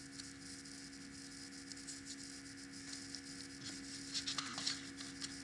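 Steady low electrical hum in a quiet room, with a few faint clicks and rustles about four seconds in.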